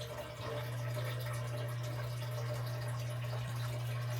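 Water running and dripping from a kitchen tap, over a steady low hum.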